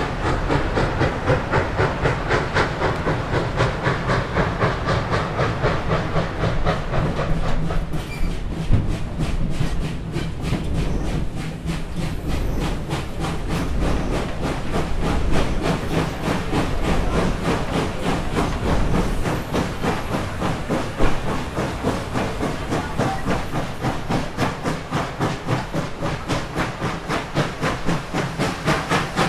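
Reading & Northern 425, a 4-6-2 Pacific steam locomotive, working steam with a fast, even beat of exhaust chuffs over a steady rumble and hiss.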